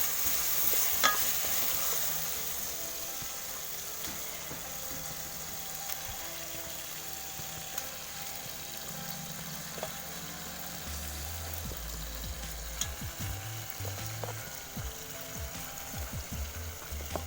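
Chicken, onions and tomatoes frying in hot oil in a pan, with a steady sizzle that is loudest at first and eases a little. Occasional clicks come from stirring. Background music with low bass notes comes in about halfway.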